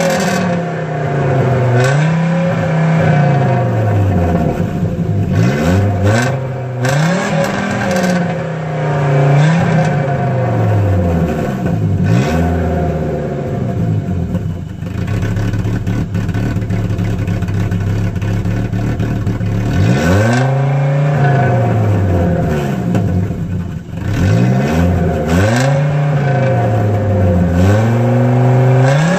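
Audi 100 C3's 2.2-litre five-cylinder engine, exhaust with a 2-inch straight pipe and stock rear muffler, revved in repeated blips, each rising and falling over about two seconds. Midway it settles to a steady idle for several seconds, then the blips start again.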